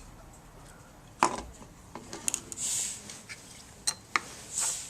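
Small plastic and metal camera parts being handled and fitted together by hand: one sharp click about a second in, then a few lighter clicks and brief rustles.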